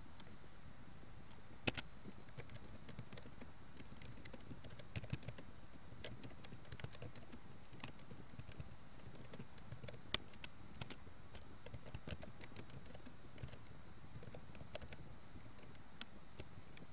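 Typing on a computer keyboard: irregular key clicks over a steady faint hiss, with two louder keystrokes, one about two seconds in and one about ten seconds in.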